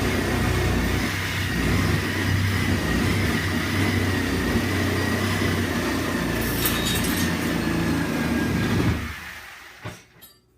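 Sawzall reciprocating saw cutting in demolition work, a steady loud buzz with a held high whine. About nine seconds in it stops and winds down, followed by two light knocks.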